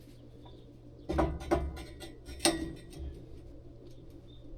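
A cluster of metal knocks and rattles, with three louder hits over about a second and a half, as the sprayer boom's breakaway end section is worked loose. A steady low hum runs underneath.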